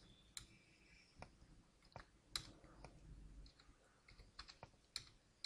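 Faint, scattered clicks of computer keyboard keys being typed, one or two at a time with pauses between, the strongest about two and a half seconds in and near the end.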